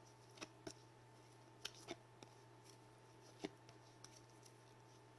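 Trading cards being handled and sorted by hand: a few light clicks and taps of card on card, the sharpest about three and a half seconds in, over a faint steady hum.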